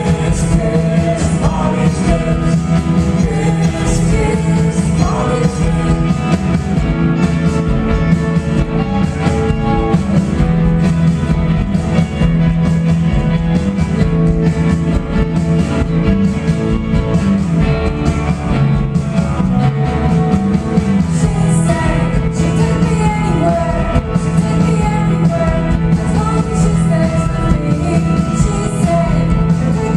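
Live rock band playing a song with singing, loud and continuous.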